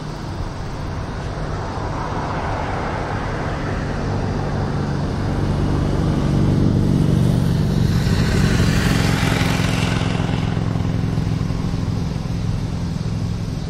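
Diesel engine of a Pierce Dash fire engine/tanker running steadily, with a louder swell of engine and road noise from about six to ten seconds in.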